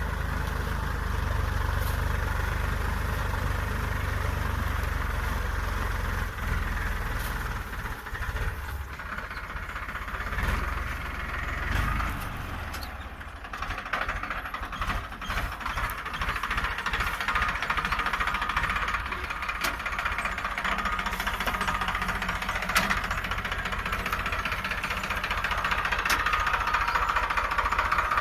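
Tractor engine running under load while pulling a plough. The sound shifts about halfway through, from a deep, steady hum to a more rattly, mid-pitched engine sound.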